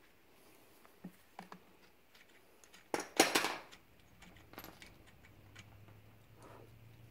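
Metal hand tools being handled on an engine block: a few light clicks, then a sharp metallic clatter about three seconds in. A faint low hum comes in near the end.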